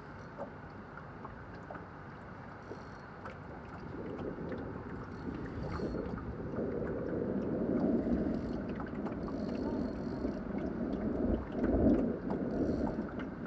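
Outdoor wind and water noise around a small open boat: a steady rushing that swells about four seconds in and stays louder and uneven, with a few faint ticks.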